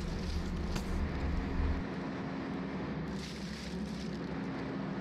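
Steady hum of a ship's engine-room machinery with a constant tone, its deep low rumble dropping away about two seconds in. Brief rustles of plastic trash being handled into the bin come twice.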